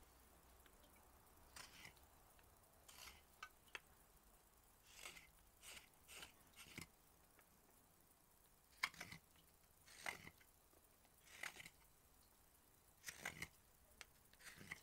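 Hook knife shaving curls from the inside of a cherry-wood spoon bowl: about a dozen short, crisp slicing cuts, irregularly spaced and some in quick pairs.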